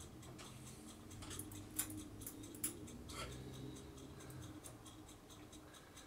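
Faint, irregular small metallic clicks and ticks of a hand screwdriver driving motherboard screws into the case standoffs, over a steady low hum.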